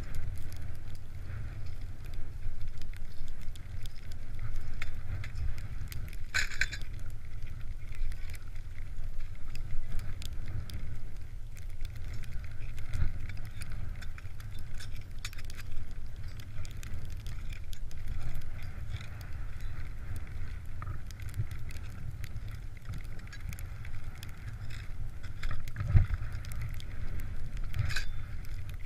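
Wind buffeting the camera microphone in a steady, fluttering rumble. A few sharp clicks and knocks come through as ski crampons are handled and fitted to touring skis: one about six seconds in and a couple near the end.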